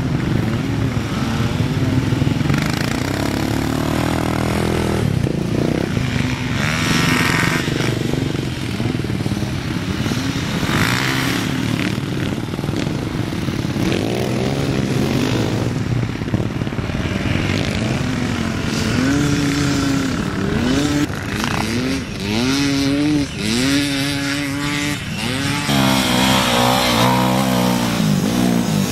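Off-road motorcycle engines revving hard on sand, their pitch climbing through each gear and dropping at each shift, over and over as bikes pass. The rising and falling is most marked in the second half.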